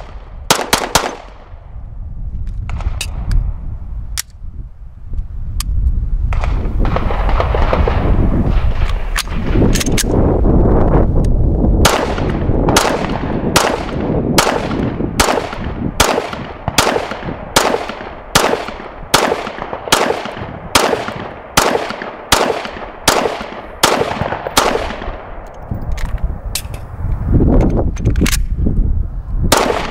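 Steyr M9-A2 9mm pistol firing: a few scattered shots at first, then a long, evenly paced string at a little under two shots a second. A low rumble sits under some stretches between the shots.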